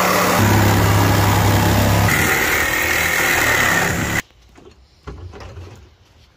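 Power saw cutting through the sheet-metal roof pillar of a car, running loud and steady with its hum shifting pitch a couple of times, then stopping suddenly about four seconds in as the cut is finished. Lighter knocks and rattles follow as the cut-off roof panel is handled.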